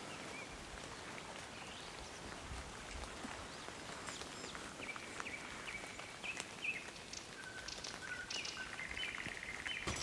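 Birds chirping and calling over a steady hiss of rain, the calls starting a few seconds in and ending in a quick trill.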